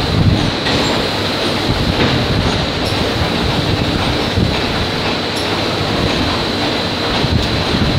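Steady factory machinery din: a dense churning rumble with a continuous high whine, and faint clicks now and then.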